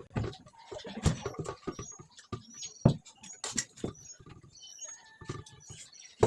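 Close-up eating sounds: irregular wet chewing and lip smacks with small clicks, the loudest about a second in and just before three seconds.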